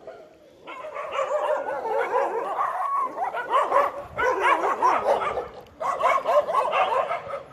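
A pack of street dogs yelping and barking over one another while they play and scuffle, in three bouts with short breaks about four and six seconds in.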